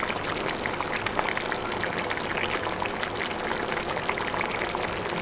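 Ghee chicken gravy simmering in a kadai: steady bubbling with many small pops and splutters.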